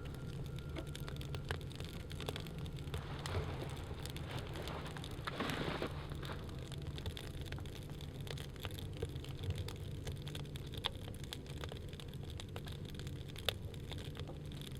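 Wood fire crackling in a small stove: scattered sharp pops and ticks over a steady low rumble, with a brief louder rushing sound about five seconds in.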